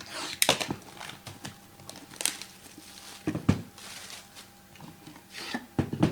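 Trading-card pack packaging being handled and opened: crinkling and tearing of wrapper and cardboard, with scattered sharp clicks and a few knocks.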